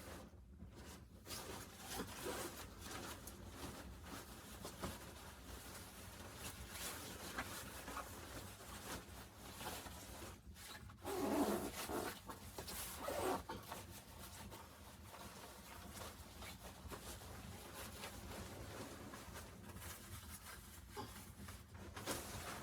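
Irregular rustling and scraping handling noises with scattered small clicks, louder for a second or two about halfway through.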